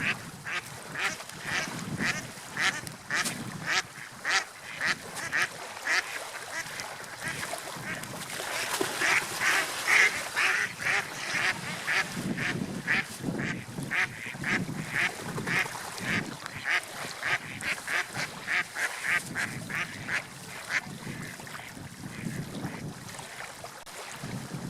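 A bird giving a long run of short, repeated calls, about two or three a second, over a steady rush of water and wind. The calls are thickest in the middle and fade out near the end.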